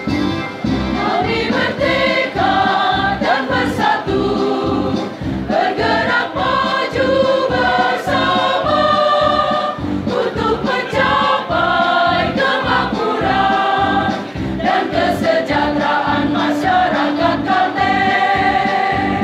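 A women's choir singing a march in unison and harmony, sung through a microphone, over an accompaniment with a steady beat.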